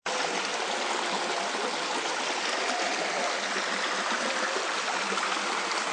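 Shallow stream flowing fast over and between moss-covered boulders: a steady, even rush of water.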